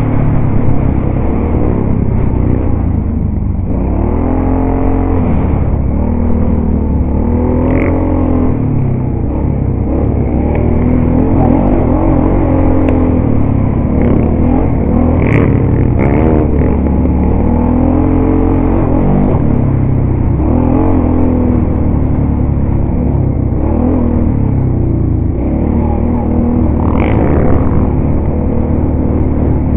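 ATV engine running under way, heard from on board, its revs rising and falling every few seconds as the throttle is worked on the trail.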